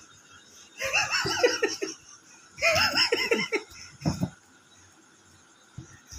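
A person laughing in two bursts, about a second in and again at about two and a half seconds, with a short burst near four seconds.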